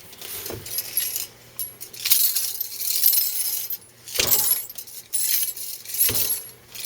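Spent brass cartridge cases jingling and clinking against the wire cage of a Caldwell brass retriever as it is rolled over them, in several bursts with a few soft thumps.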